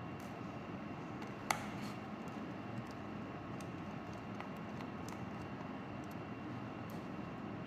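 Small clicks and taps of a screwdriver and plastic casing parts being handled as a handheld GPS unit is taken apart, with one sharper click about a second and a half in, over steady background noise.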